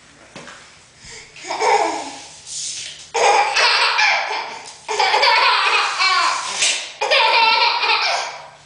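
Baby laughing hard in four loud bouts of belly laughs, a few seconds each with short breaks between, set off by a tape measure being held out in front of her.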